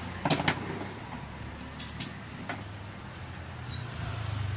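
A few short, sharp clicks and knocks of an electric fan's plastic and metal parts being handled and fitted together during reassembly, two close together near the start and a few more about two seconds in, over a steady low hum.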